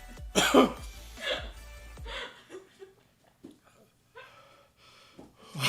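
A person's pained cry falling in pitch, then scattered gasps and whimpers from a mouth burning after a very hot bean. Background music plays underneath.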